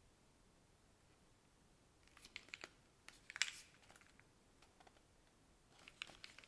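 Keystrokes on a Veil 65 gasket-mounted 65% mechanical keyboard with an aluminium plate, no foam, WINGBlack switches and DCS keycaps. After about two seconds of quiet come short bursts of a few keystrokes each, the loudest cluster a little past the middle and another near the end.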